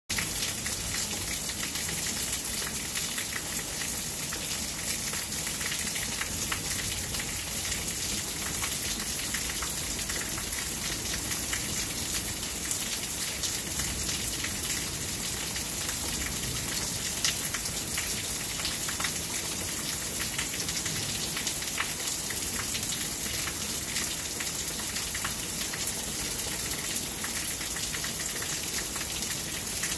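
Steady rainstorm: rain falling without let-up, a dense patter of drops.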